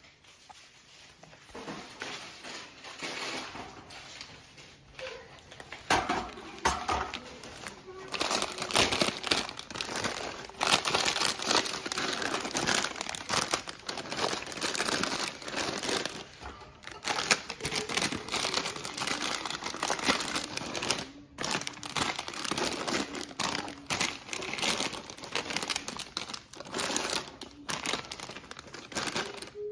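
Plastic packaging and bags crinkling and rustling as groceries are unpacked, with many quick clicks and taps. It is quieter at first and gets louder about six seconds in.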